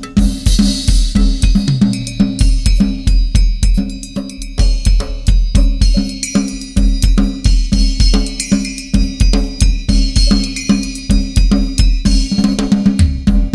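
Drum kit solo in a tribal style: steady bass-drum pulses under fast tom strokes, with cymbals ringing over the top and fresh crashes at the start and about six seconds in.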